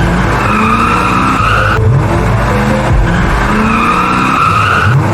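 A drifting car's tyres squealing twice in long, slightly rising squeals, about three seconds apart, over a running engine that revs up just before each squeal.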